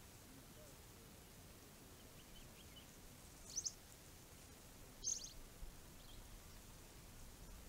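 Faint, short, high bird chirps: a few soft notes, then a quick pair about halfway through and another chirp a second and a half later, over a low steady hiss.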